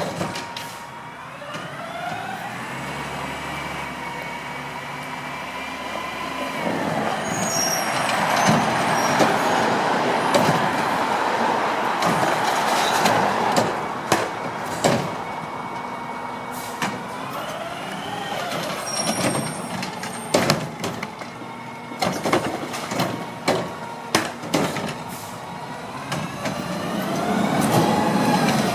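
Garbage truck working: its engine revs up and holds, then drops, three times over, with repeated sharp metal bangs and clanks.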